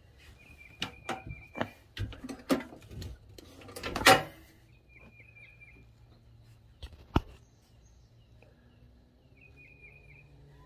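Light clicks and knocks of a brush and jar of anti-seize being handled at the engine's crankshaft, several in quick succession with the loudest about four seconds in, and one more about seven seconds in. A small bird chirps in three short runs.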